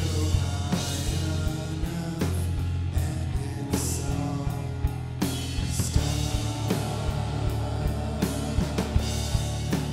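Background rock music with guitar, a steady bass line and drums keeping a steady beat.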